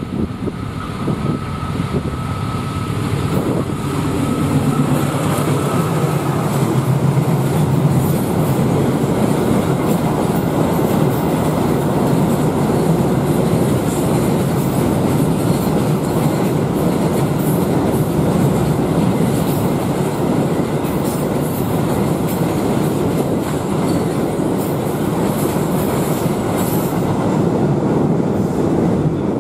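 Diesel-hauled container freight train passing close by at speed. A low engine sound is strongest in the first several seconds, then comes a long, steady run of wagon wheel and rail noise with clicks over the rail joints. The sound cuts off suddenly at the end.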